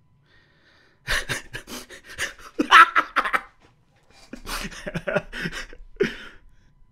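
A man laughing hard in two breathy bouts of rapid pulses, the first starting about a second in and the second about four seconds in.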